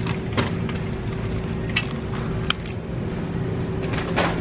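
Supermarket background noise: a steady hum with a low tone running under it, broken by a few short sharp clicks and knocks.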